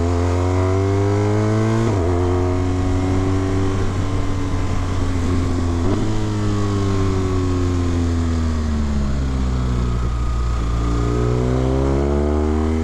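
Motorcycle engine and exhaust heard from on board, with loud aftermarket cans: revving up through two upshifts, about two and six seconds in, then easing off as the bike slows, and pulling again near the end, with wind noise underneath.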